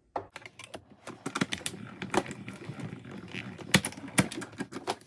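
Die-cutting machine being cranked, feeding a stack of cutting plates, dies and cardstock through its rollers: an irregular string of clicks and knocks, with two louder clacks a little after the middle.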